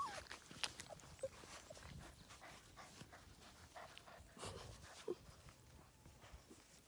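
Five- to six-week-old Labrador puppies close to the microphone: faint pawing and scuffling with a few brief little whimpers.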